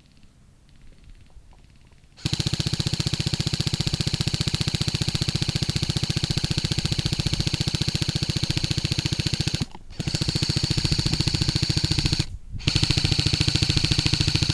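Airsoft gun firing on full auto: a fast, even rattle that starts abruptly about two seconds in and runs as three long bursts, with two short breaks between them.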